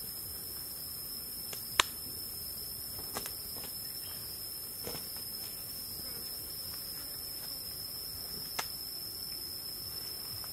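Insects singing in one steady, unbroken high-pitched tone over a hiss. A few sharp clicks from handling come through, the loudest about two seconds in and another near the end.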